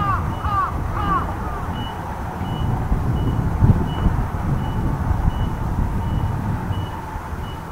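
Low, distant rumble of jet aircraft, the Blue Impulse team's Kawasaki T-4 trainers, with a vehicle's reversing alarm beeping faintly and evenly, about one and a half beeps a second. A few quick chirps come in the first second.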